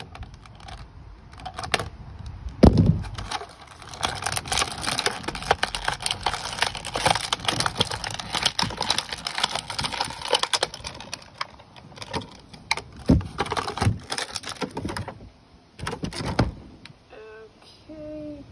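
An action figure's plastic packaging crinkling and crackling with many quick clicks as the figure is worked out of its box. There are two loud knocks, the first about three seconds in and the second about thirteen seconds in.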